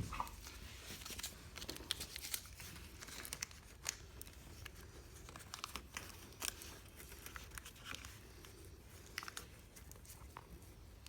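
Faint crinkling and small scattered clicks of a piece of tape being torn off and pressed on.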